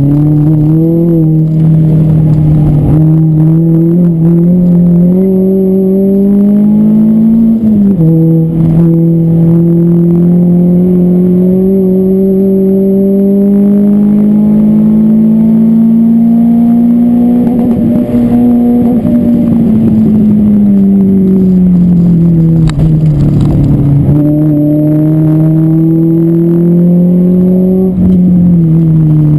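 Car engine heard inside the cabin while the car is driven hard on a race circuit, rising in pitch under acceleration. It drops sharply about eight seconds in as it shifts up, climbs slowly again, falls away for a few seconds as the car slows, then climbs once more and drops near the end.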